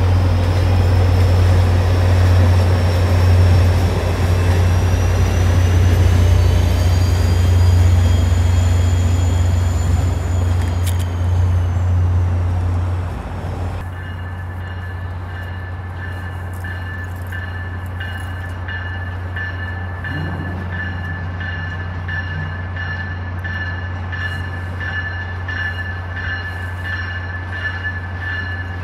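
Train running at a station: a loud low engine drone with whining tones that rise and bend in pitch. About halfway through, the sound drops to a quieter steady drone with several high steady tones.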